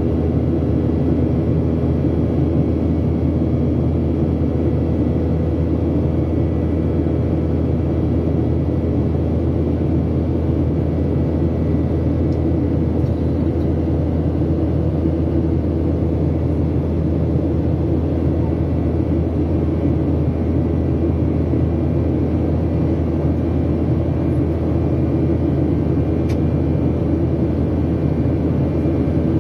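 Cabin noise of a Boeing 737-800 in flight, heard from a seat over the wing: the steady low rumble of its CFM56-7B turbofan engines, with a few steady hums in it.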